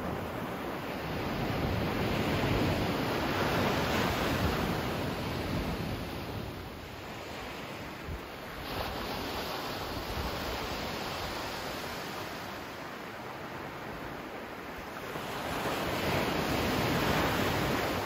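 Gentle ocean waves washing up onto a sandy beach, the surf rising and falling in slow swells. The surf sound changes abruptly about halfway through.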